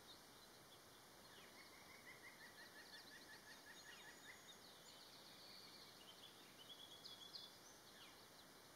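Faint songbird calls over a low outdoor hiss: a fast trill of short repeated notes lasting about three seconds, with thin higher chirps, then a brief cluster of chirps near the end.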